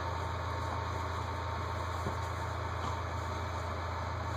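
A steady low rumble over a constant hiss, with no break or change.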